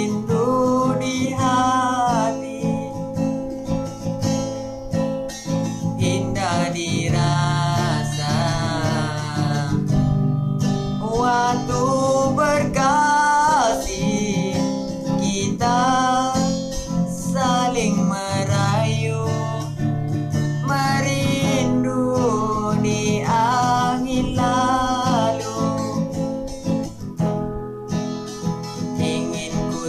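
Acoustic guitar strummed as accompaniment while a young man sings a Malay love song, the voice gliding and holding notes over the chords.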